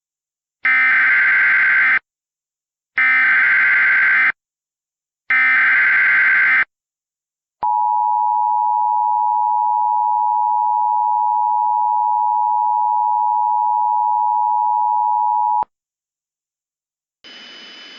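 Emergency Alert System tones: three short bursts of the digital SAME header data, about a second apart, then the two-tone attention signal (853 and 960 Hz), held steady for about eight seconds. They mark the start of a new emergency alert.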